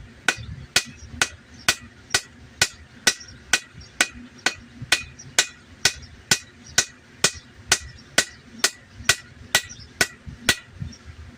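Hammer blows forging the bevel into a wakizashi's steel blade on an anvil: a steady run of sharp ringing strikes, about two a second, that stops near the end.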